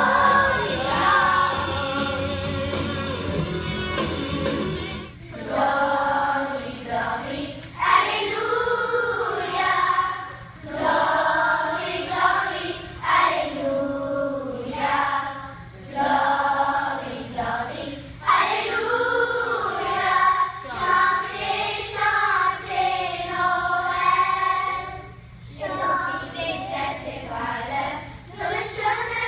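Children's choir singing. About five seconds in, the sound cuts abruptly from one song to another choir song, sung in phrases with short breaths between them.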